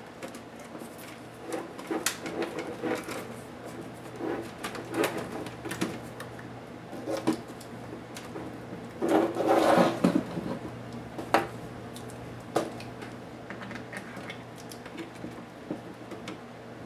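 Hands working on a laptop's plastic case and display hinge with a small screwdriver: scattered clicks, taps and scrapes, with a longer, louder spell of plastic clatter a little past halfway as the screen assembly is moved. A steady low hum runs underneath.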